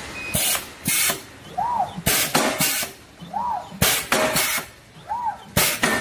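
Automatic braided-strap cutting machine running in a steady cycle of about one and three-quarter seconds. Each cycle has a brief whine that rises and falls in pitch as the strap is fed, then two short, harsh strokes from the cutter.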